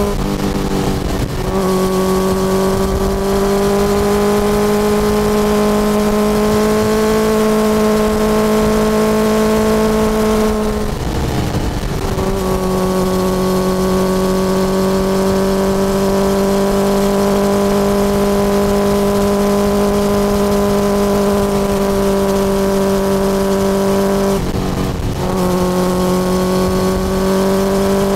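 2006 Suzuki GSX-R1000 K6's inline-four engine running through a full Yoshimura titanium exhaust under way, its note held fairly steady at cruising revs. The note breaks briefly three times, and after the second break it comes back slightly lower.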